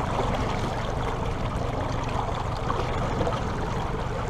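Water sloshing and splashing against a boat's hull as a small black marlin is held alongside at the surface to revive it before release. A steady low hum from the boat's engine runs underneath.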